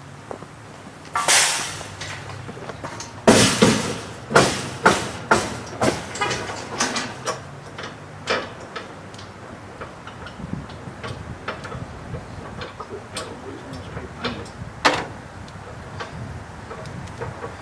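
Steel hitch-mounted wheelchair carrier rack clanking and rattling as it is lifted and worked into a pickup's hitch receiver: a scraping rush about a second in, then a quick run of sharp metal clanks for several seconds, with scattered knocks after.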